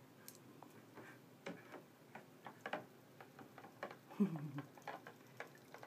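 Robofish toy fish's tail motor clicking: a run of light, irregular ticks. A child makes a short sound with a falling pitch about four seconds in.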